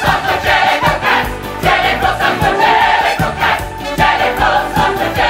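Background music: a show tune sung by a chorus of massed voices over a steady drum beat.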